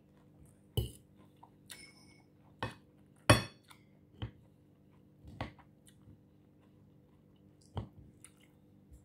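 Metal fork clinking against a ceramic plate while spearing lettuce salad: several sharp clinks a second or so apart, the loudest about three seconds in, with quiet chewing between them.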